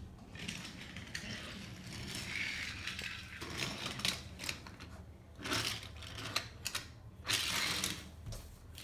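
Wooden toy trains and track pieces clicking and knocking as they are pushed and handled on a wooden railway layout, with scattered sharp clacks among rustling.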